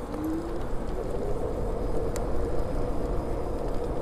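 MotoTec 2000-watt fat-tire electric scooter under way: wind noise on the microphone over a steady rumble from the fat tires, with a steady motor whine. A short rising tone sounds near the start and a single click about halfway through.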